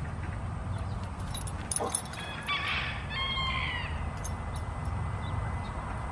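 Domestic tom turkey gobbling: a short burst of warbling calls about two seconds in, lasting under two seconds and ending in falling notes, over a steady low rumble.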